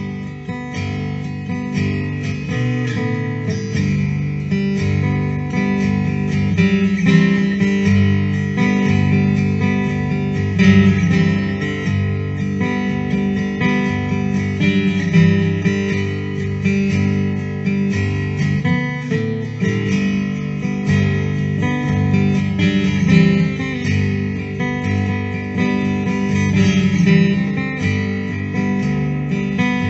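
Instrumental acoustic guitar music, picked and strummed, with no singing.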